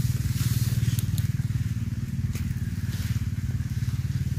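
A steady, low engine-like drone with a fast, even pulse, with a few faint clicks and rustles as mushrooms are handled and trimmed among the leaf litter.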